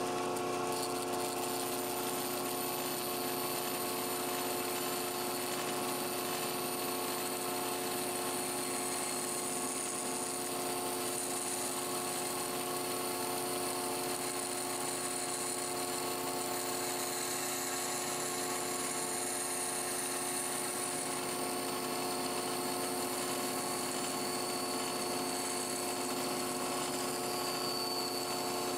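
Bandsaw running with a steady motor hum as its blade cuts into a wooden lure blank held in a square jig, shaping the scoop on top of the head.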